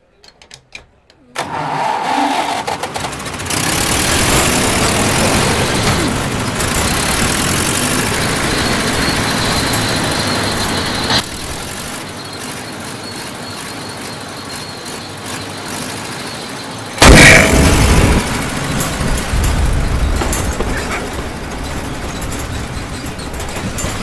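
Road roller's diesel engine starting up and running loudly, the noise dropping somewhat about eleven seconds in. About seventeen seconds in comes a sudden loud blast from the engine as it belches black smoke, and loud running noise follows.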